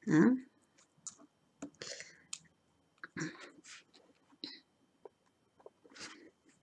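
Small irregular clicks and scratches of tweezers picking resin diamond-painting drills out of a plastic tray and pressing them onto the canvas.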